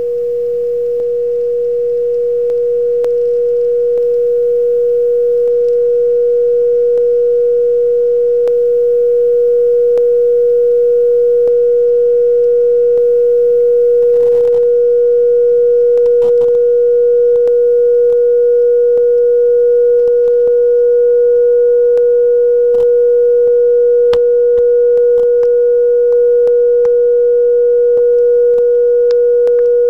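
Small glass test-tube thermoacoustic engine, heated by a flame under its stack, singing a steady pure tone a little under 500 Hz. The tone swells slightly over the first several seconds, then holds steady as the engine keeps running.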